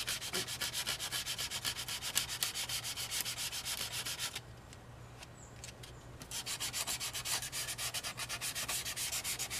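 Sandpaper rubbed by hand in quick back-and-forth strokes over the steel plate of an old handsaw, scouring rust off near the teeth. The strokes stop for about two seconds around halfway, then start again.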